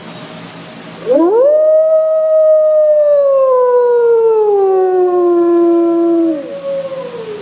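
Great Plains wolf howling: one long howl that sweeps steeply up about a second in, holds, then slowly slides down in pitch. A second howl joins near the middle and trails on, falling. Faint hiss comes before the call.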